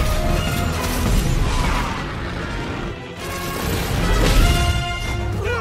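Orchestral action score with sound effects mixed over it: crashes and booms, the loudest about four seconds in.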